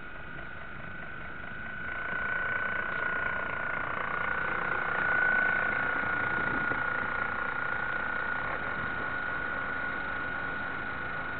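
Steady high whine of a radio-controlled model warship's drive motor, picked up on the model's own deck, over a constant hiss; it grows louder about two seconds in as the model speeds up, then holds.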